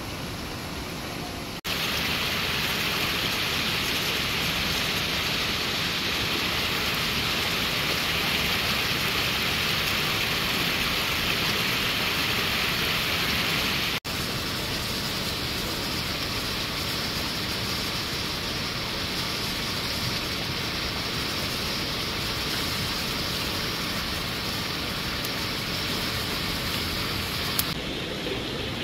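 Steady rush of water from a rocky mountain stream below a small waterfall. The noise jumps louder about two seconds in, then drops and changes tone halfway through.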